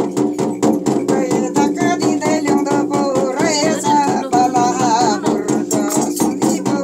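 A voice singing with a wavering pitch over a fast, steady rattling beat of about six or seven strokes a second.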